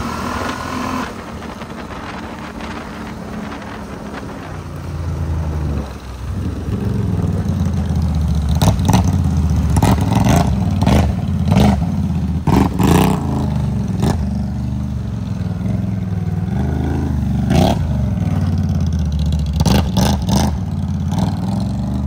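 ATV engine running, lower for the first few seconds, then revving up about five seconds in and running hard and loud, with scattered sharp clacks over it.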